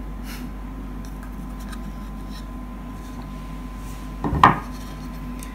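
Wooden box lid set down on a wooden table with a single short knock about four seconds in, over a steady low hum.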